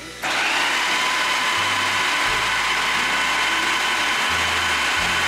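Electric food processor grinding dal with ginger, garlic and green chilli into a coarse batter: the motor starts abruptly just after the start and runs at a steady high whine.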